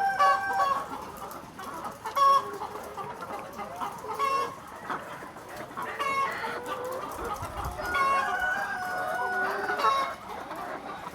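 A flock of chickens clucking and calling over one another, with louder short calls standing out every couple of seconds.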